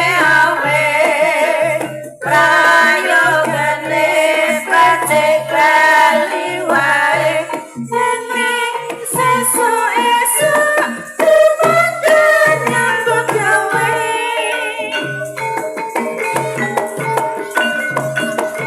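Javanese gamelan music for an ebeg horse dance: a singer over metallophone notes and a steady low drum beat for about the first eight seconds, then the instruments carry on without the voice.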